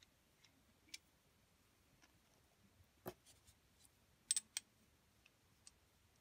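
Near silence broken by a few faint, scattered clicks of brass wax-seal stamp heads and a stamp handle being handled, as the handle is fitted onto a large brass head; the loudest is a quick cluster of clicks about four seconds in.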